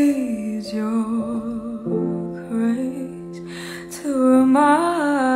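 A young woman singing a slow ballad line solo, with vibrato on the long held notes, over a steady sustained-chord accompaniment that changes chord about two seconds in.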